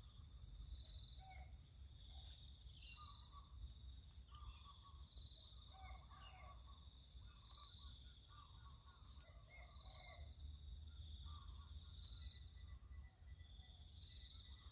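Quiet countryside ambience: a faint high-pitched insect drone that swells and fades about every second or so, holding steady near the end, with scattered soft bird calls.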